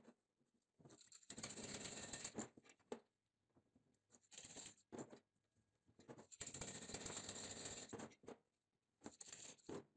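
Faint metallic scraping and clinking as a thin copper strip is pressed and bent around a washing machine's square drive shaft, in two longer stretches with short clicks between.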